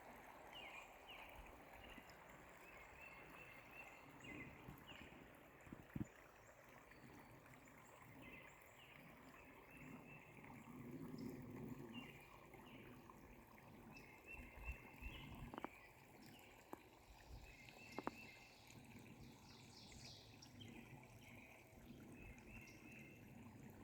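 Faint outdoor nature ambience: a quiet wash of running water with repeated short chirps in little clusters, and a few soft clicks.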